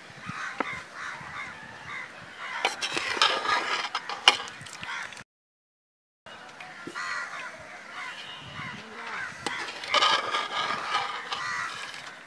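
Crows cawing among other bird calls, with a few sharp clinks of a steel ladle against an aluminium pot. The sound drops out completely for about a second near the middle.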